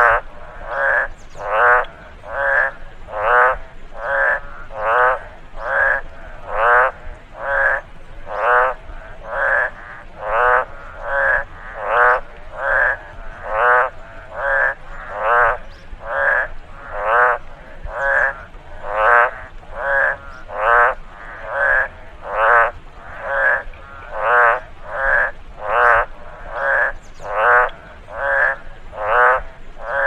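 Frog croaking in a steady rhythm: short, pulsed calls repeated a little more than once a second.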